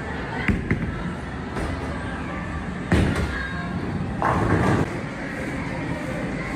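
Bowling ball rolling down a wooden lane with a steady rumble, then crashing into the pins about three seconds in, followed by a second clatter about a second later.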